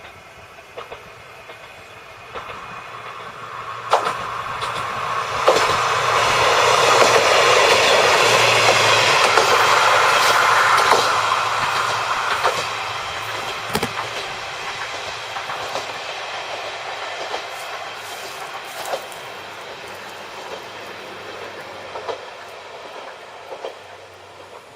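Yodo Line diesel railcar passing by. Its running noise builds over a few seconds and is loudest for several seconds, with sharp clicks from the wheels over rail joints, then fades slowly as it moves away.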